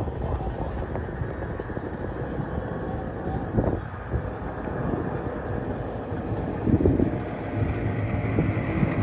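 Snowmobile engine running steadily, with wind noise on the microphone.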